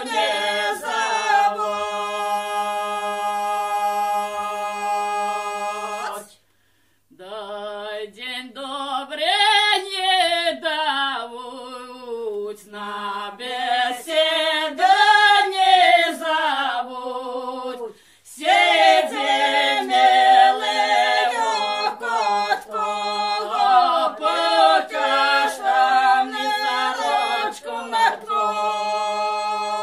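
Central Polissian Ukrainian village folk song sung unaccompanied by a group of singers. A long held chord opens it, then comes a short breath pause about six seconds in, after which the singing goes on with notes sliding up and down between held tones.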